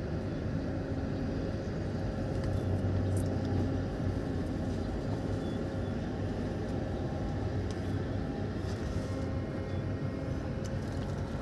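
Diesel truck engine idling: a steady low rumble with a constant hum.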